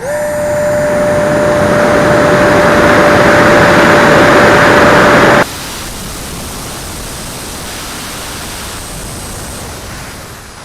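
Radio-controlled L-39 Albatros model jet's motor spinning up almost instantly to full power, a steady high whine over a loud rush of air. About halfway through the sound drops abruptly to a quieter, more distant rush that fades near the end.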